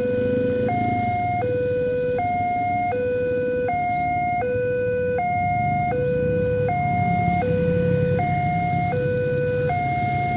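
Railway level-crossing warning siren sounding: an electronic tone steps between pitches about every three-quarters of a second and repeats steadily, over a low rumble.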